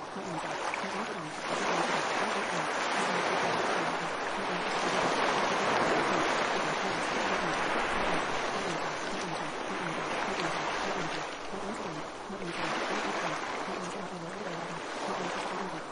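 Steady rushing water noise that swells after a second or two and dips briefly about three-quarters of the way through, with a faint low wavering sound underneath.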